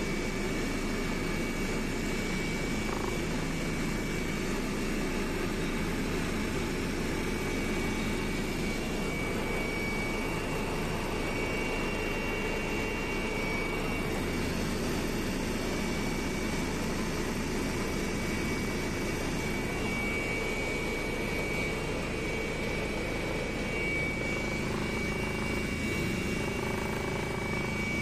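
Steady engine drone and rushing air inside an aircraft cabin in flight, with a thin steady whine above it.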